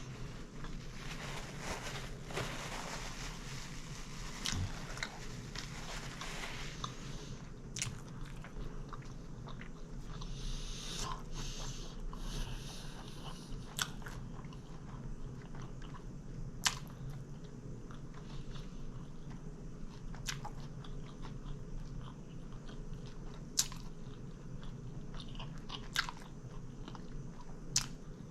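Close-miked chewing and biting of a sub sandwich, with crunching densest in the first several seconds and scattered sharp mouth clicks after.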